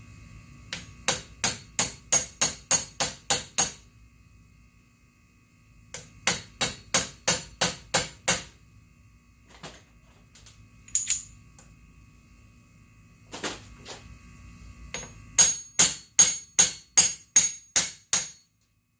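A hammer tapping on metal in three runs of about ten sharp strikes each, roughly three a second, with a few single knocks between the runs; the last run has a light metallic ring.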